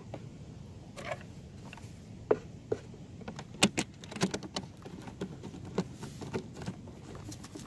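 Irregular light clicks and taps of a hand handling an RC boat's hatch and plastic hull, most frequent around the middle, over a steady low background noise.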